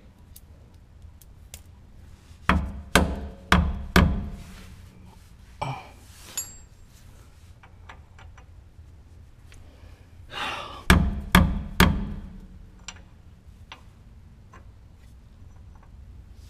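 Metal hardware knocking and clicking as a shock skid and its bolt are worked into place by hand at a truck's lower shock mount: two quick runs of about four sharp knocks, with small clicks between.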